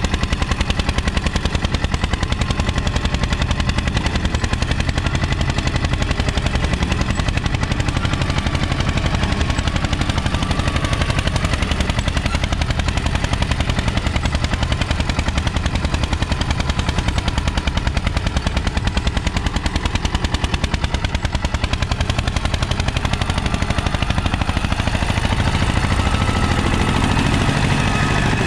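Mahindra Airflow tractor's diesel engine running under load as it pulls a nine-tine cultivator through the soil, with a rapid, even exhaust beat.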